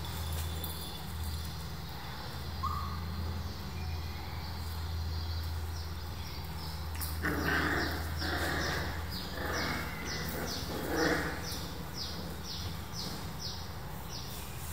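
Black puppies play-fighting, one giving four short puppy barks about halfway through. A high chirp repeats steadily in the background.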